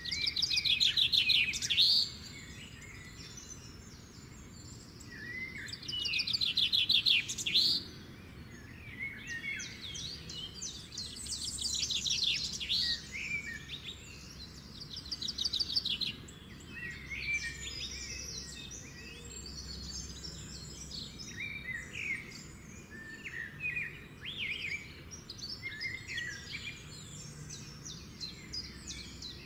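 Birds singing: fast loud trills near the start and again about six seconds in, then a run of many shorter chirps and calls.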